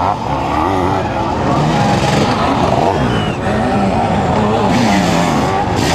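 Sidecar motocross outfits' engines revving hard, their pitch rising and falling with the throttle.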